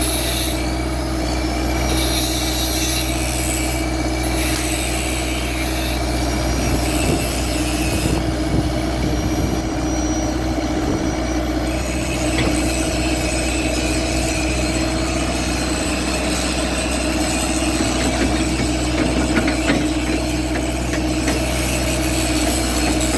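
Komatsu PC78 excavator's diesel engine running steadily at an even speed.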